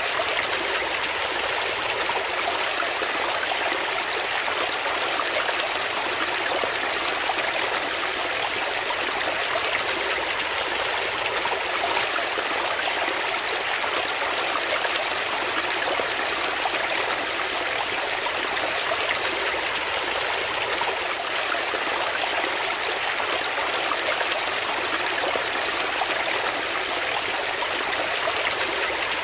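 Shallow rocky brook flowing and splashing over stones: a steady, even rush of water.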